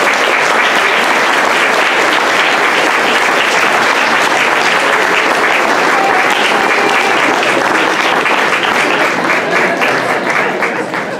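Audience clapping, many hands at once, steady and loud, thinning out near the end.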